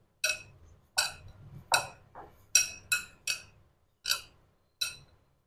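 Glass mixing bowl clinking as dough is kneaded by hand in it: about nine short, ringing clinks, unevenly spaced, over faint handling noise.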